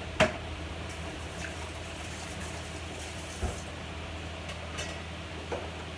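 Steady low kitchen hum, broken by a sharp clack just after the start, a duller knock about three and a half seconds in and a small knock near the end: utensils being picked up and set down at the counter.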